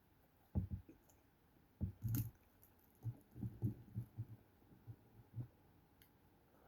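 Close-miked chewing of McDonald's fries: soft low thumps, a loose run of about two to three a second from about three seconds in, with a few small mouth clicks.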